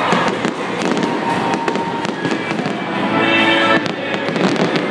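A fireworks display going off in quick succession: many sharp bangs and crackles, one after another, over music from the stadium sound system that comes through more clearly about three seconds in.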